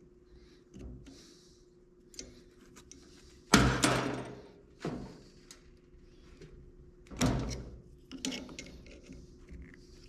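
Hand tools knocking and clunking against the Toyota 4x4 truck's parts during an awkward repair job: a series of separate knocks, the loudest about three and a half seconds in and another about seven seconds in.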